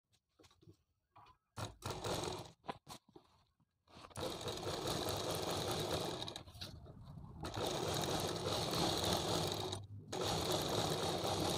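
Sewing machine stitching along a fabric edge. It starts with a few short bursts of stitches, then runs steadily in longer stretches, stopping briefly twice.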